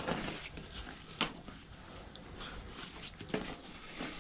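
High-pitched squealing whistle of air being drawn into a deflated motorcycle inner tube through its valve stem as the tube is handled. It comes in short squeaks at first, then a longer, louder squeal near the end, among handling knocks and rubber rubbing.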